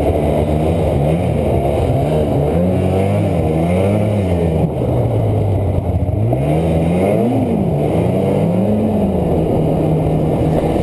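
Snowmobile engine running as the machine rides along, its pitch rising and falling again and again with the throttle. The biggest rev comes about two-thirds of the way through.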